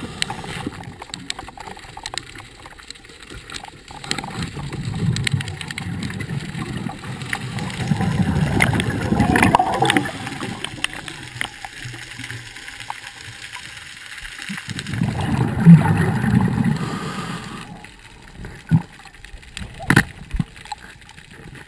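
Underwater sound picked up through a GoPro housing: a scuba diver's exhaled regulator bubbles gurgling in irregular bursts every few seconds. Two sharp knocks come near the end.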